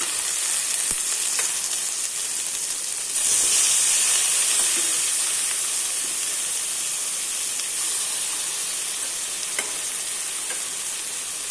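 Sliced onions sizzling in butter in a kadai, with a few light taps of a stirring spoon. About three seconds in, the sizzle jumps louder as pressure-cooked chicken goes into the hot pan, then slowly eases.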